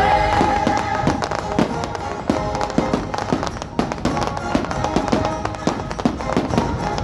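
Dense barrage of fireworks shells bursting, several cracks a second, over the fireworks show's soundtrack music.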